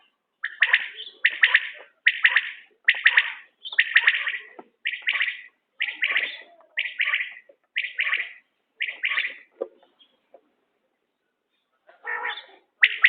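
Common quail calling: a long series of short, sharp, repeated notes about half a second apart. The calls pause for a couple of seconds near the end, then start again.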